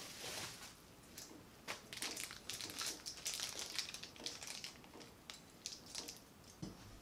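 Plastic bubble-wrap packaging crinkling and rustling as it is handled and opened, with irregular small crackles.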